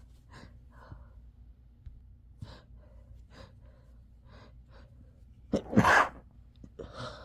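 A person's quiet, short breaths for several seconds, then one loud sneeze about five and a half seconds in, followed by a softer breath.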